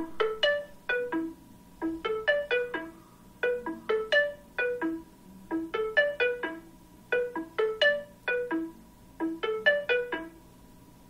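Seeing AI app's processing sound from an iPhone: a short rising run of plucked, marimba-like notes repeated over and over while the app processes a captured document page.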